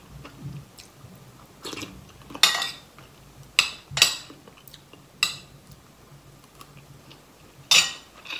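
Metal spoon clinking and scraping against a ceramic bowl of curry in a series of short, sharp knocks, with chewing between them.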